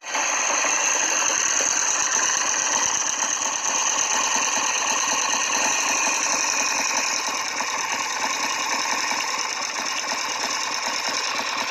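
Triumph Tiger 90 motorcycle engine running steadily with a dense mechanical clatter, cutting in abruptly.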